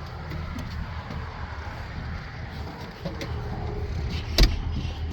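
New Holland C245 skid steer's diesel engine running steadily at idle, with a single sharp click about four seconds in.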